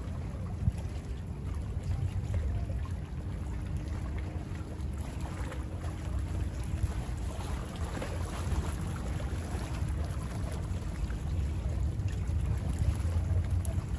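Small waves of bay water lapping and splashing, most active about halfway through, over a low, uneven rumble of wind buffeting the microphone.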